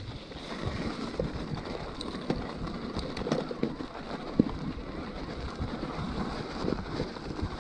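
A Scott E-Genius e-mountain bike with plus-size tyres rolling over rough, snowy trail: tyres crunching and hissing, with frequent rattles and knocks from the frame and drivetrain, the sharpest about halfway through. Wind rumbles on the microphone.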